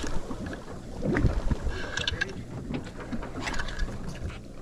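Wind buffeting the microphone over water lapping and splashing against the side of a small boat, with a few brief splashes about two and three and a half seconds in.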